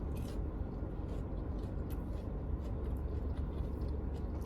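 Steady low rumble inside a parked car, with faint scattered clicks and smacks of someone chewing fried chicken.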